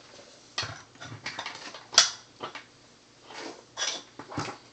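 Handling noises as tools are moved about over the opened synthesizer: a series of light knocks, clicks and rustles, with one sharp click about two seconds in.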